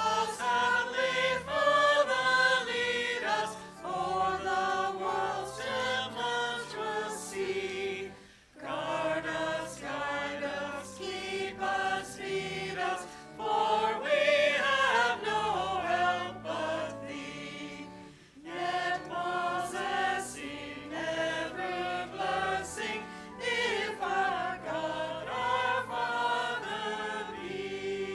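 A group of voices singing a hymn together over sustained instrumental bass notes, in three long phrases with short breaks about 8 and 18 seconds in.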